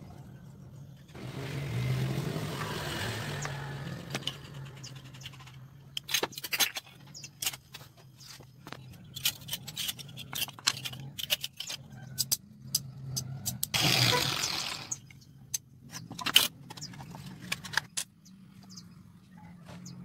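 Small wooden pieces clicking and tapping against each other and the work board as they are handled and fitted, with two brief stretches of rushing hiss, over a steady low hum.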